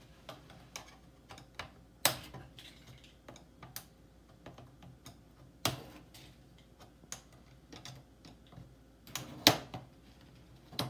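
Irregular small clicks and a few louder snaps as the black retaining tabs along the edge of an LCD monitor panel's metal frame are pried up one by one with a butter knife.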